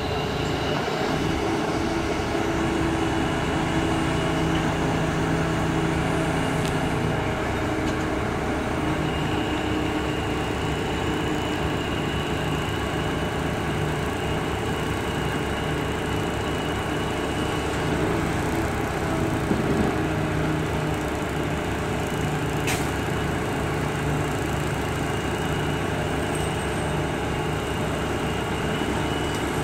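Mobile crane's diesel engine running steadily under load as it hoists a long aluminium tent arch, with a thin whine above the engine's hum. A single sharp click about three quarters of the way through.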